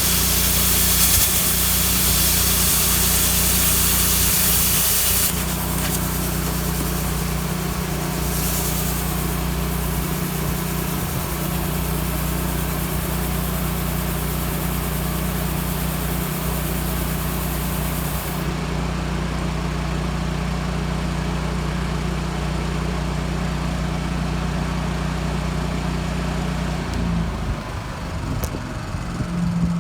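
Engine of a Miller Trailblazer 325 welder-generator running steadily under load from a plasma cutter, under a loud hiss of the cutter's air and arc. The hiss drops to a fainter air hiss about five seconds in and stops about eighteen seconds in. The engine note changes near the end.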